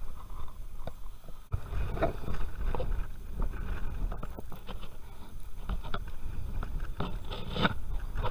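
Irregular clicks and knocks from a fishing rod and reel being handled as its drag is set, over a low wind rumble on the microphone that grows louder about a second and a half in.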